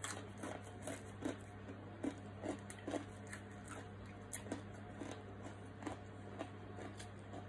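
A person chewing roast pork leg, faint irregular chewing clicks and crunches, over a steady low hum.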